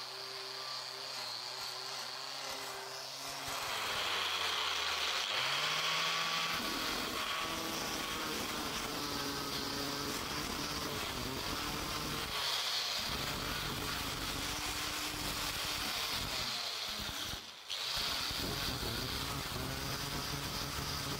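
Angle grinder with a sanding disc running and sanding a wooden block, its pitch wavering as it is pressed and eased. A quieter steady hum comes before the grinder starts a few seconds in, and the grinding stops for a moment about three-quarters of the way through before carrying on.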